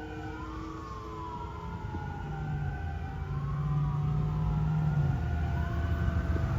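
Fire engine sirens wailing, two tones rising and falling slowly out of step with each other over the truck's low engine rumble. The sound grows louder as the engine approaches.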